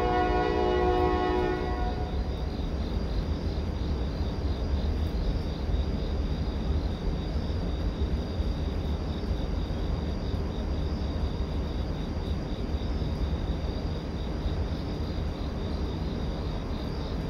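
A train horn blowing a chord of several notes that cuts off about two seconds in. It gives way to the steady low rumble of the passing train, with insects chirping faintly above it.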